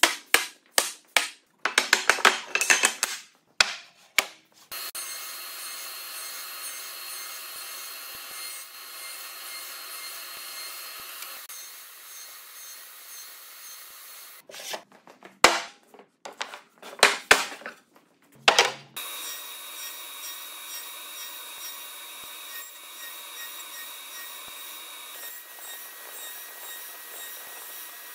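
Wooden parts knocking and clattering together, then a power saw running steadily with a fixed whine as it cuts half-lap notches in wood. More wooden knocks come about halfway through before the saw runs on.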